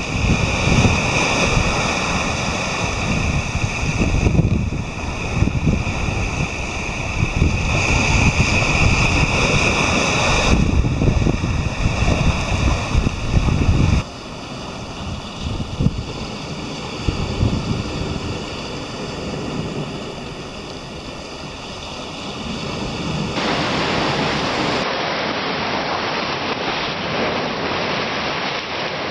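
Ocean surf breaking and washing over rocks, with wind buffeting the microphone and adding a heavy low rumble for the first half. After a cut about half way it quietens, then about three-quarters in it becomes a louder, fuller hiss of waves breaking over the rocks.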